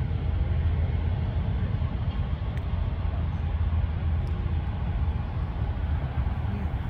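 Steady low outdoor rumble, strongest in the bass, with an even hiss above it and no single event standing out.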